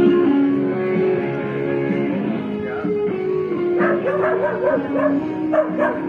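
Guitar music playing, with a dog yipping in a quick run of short cries from about four seconds in and again near the end.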